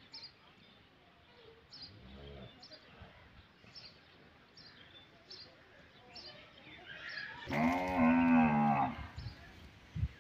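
A cow mooing: one long call about seven and a half seconds in, the loudest sound here, with a fainter low call a couple of seconds in. Short high chirps come every second or so throughout.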